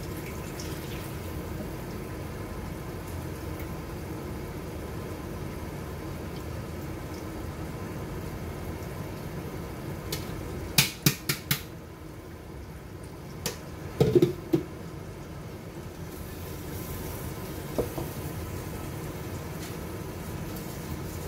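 Curry simmering in a stainless-steel pot over steady kitchen background noise. About halfway through comes a quick run of five sharp clicks, then a few ringing knocks of utensils on cookware.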